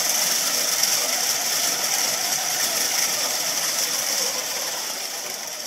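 Drive motors and gearboxes of an omni-wheel robot running hard as it spins in place on carpet: a steady, dense mechanical gear noise with a strong high hiss, building at the start and easing off near the end.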